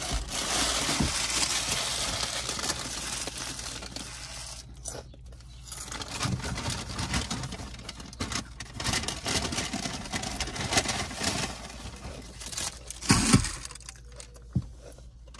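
A crinkly potato-chip bag rustled and torn open, then intermittent rustling and crunching of kettle-cooked potato chips being eaten, with a few dull thumps near the end.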